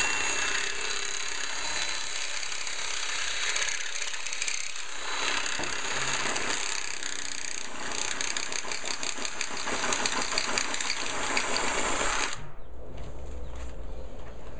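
Cordless drill boring into a sliding patio door's sill track, enlarging the hole for a foot lock bolt. It runs with a fast rattling chatter in the second half and cuts off suddenly about twelve seconds in.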